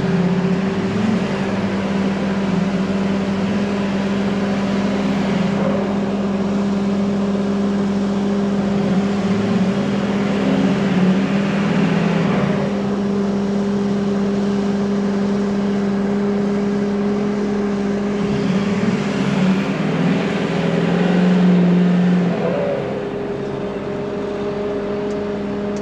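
Heavy farm vehicle's diesel engine running steadily under load as it drives out of mud, with a constant low drone that swells briefly near the end.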